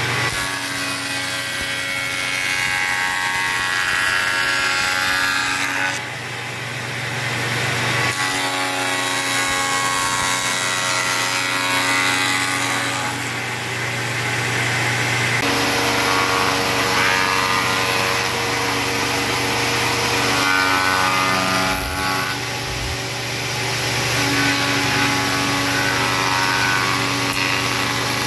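Bench spindle moulder running, its cutter shaping the edge of wooden door parts as they are fed past by hand. The hum is steady, with its tone shifting a few times as the cutter's load changes.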